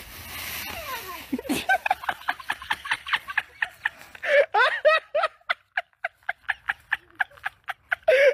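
A person laughing hard in a long run of quick, breathy bursts, several a second, starting about a second and a half in.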